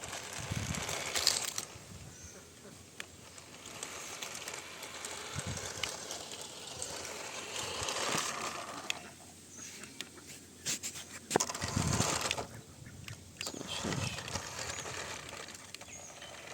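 Toy vehicle's small motor and plastic gears clattering and whirring in irregular spells, with scattered clicks.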